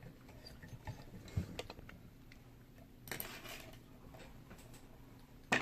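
Faint, scattered small clicks and ticks from a vintage Yale & Towne safe deposit box lock being handled, with a brief scrape about three seconds in.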